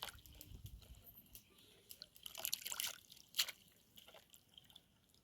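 Leafy greens being washed by hand in water: light splashing and dripping, busiest in the middle.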